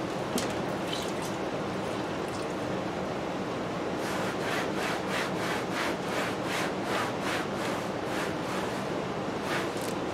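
A damp cloth rubbing over a wooden turntable cabinet panel in quick back-and-forth strokes, about three a second, starting about four seconds in, over a steady hiss. At first come a few faint splashes as the cloth is wrung out over a basin of water.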